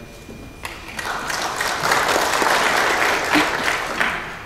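Audience applauding, starting just under a second in, swelling quickly, then easing near the end.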